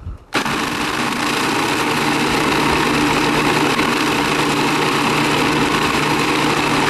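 Countertop food processor running steadily, grinding a full bowl of cookies into crumbs. The motor starts about a third of a second in.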